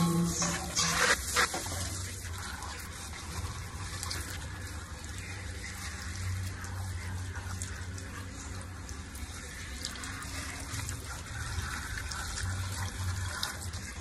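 Water spraying from a handheld shower head onto a wet puppy and a tiled floor, a steady hiss. A few louder sounds in the first second and a half.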